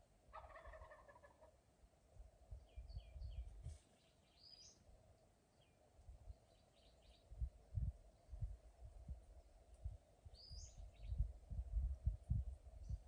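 A wild turkey tom gobbles once, a rapid rattling gobble starting about half a second in and lasting about a second. Faint small-bird chirps follow, and bouts of low rumbling on the microphone are loudest near the end.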